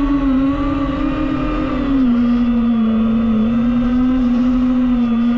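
DJI FPV quadcopter's motors and propellers whining in flight, a steady pitched hum that drops slightly about two seconds in and then holds.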